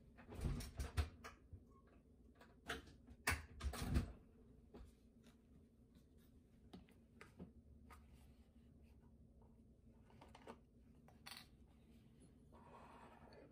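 Light clicks and knocks of kitchen items being handled on a counter: a cluster of sharper knocks in the first four seconds, then sparse small taps and a soft rustle near the end, over a faint steady hum.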